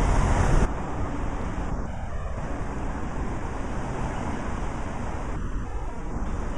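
Steady rushing noise of wind and road traffic, louder at first as a car goes by close, then dropping abruptly under a second in to an even lower rush.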